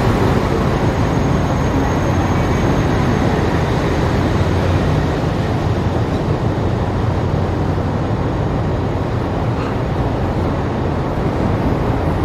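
Passenger train rolling past a station platform behind twin WDM3A ALCO diesel locomotives: a steady rumble of coach wheels on the rails, easing off slightly at first.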